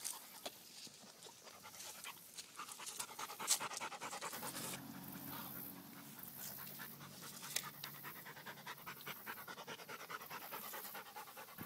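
A dog panting rapidly and steadily at close range, winded from swimming out and dragging a big fish from the water.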